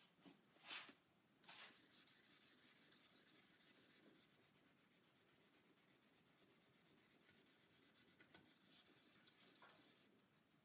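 Fine-grit wet sanding on a waterborne Crystalac Brite-Tone lacquer finish: a faint, rapid back-and-forth rubbing hiss of abrasive paper on the lacquer. It starts about a second and a half in and stops near the end, after one short, louder scrape near the start.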